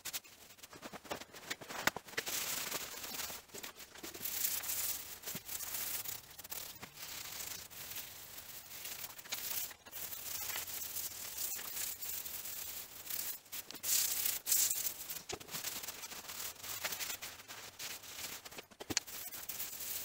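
A rag rubbed and wiped by gloved hands over the cast-iron column of a Kearney & Trecker milling machine, in uneven scrubbing strokes. A few sharp clicks come through, one about two seconds in and one near the end.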